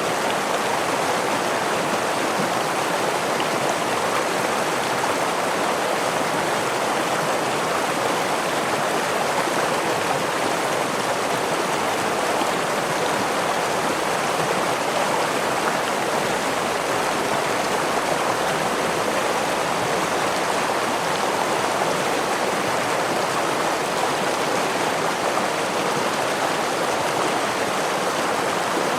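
Stream water running over rocks, a steady unbroken wash of sound with no changes.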